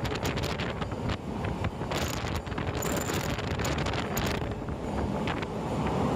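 Wind buffeting the microphone over the steady low rumble of a moving train, with scattered clicks.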